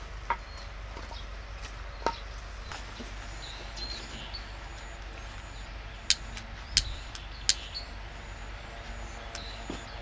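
Split firewood knocking a couple of times as it is stacked on a fire pit, then three sharp clicks about two thirds of a second apart as a lighter is sparked at the kindling to start the fire.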